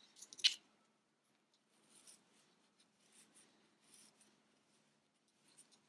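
Soft rustling and scratching of fiberfill being pushed into a small crocheted tube with the back of a crochet hook, with a couple of brief clicks near the start.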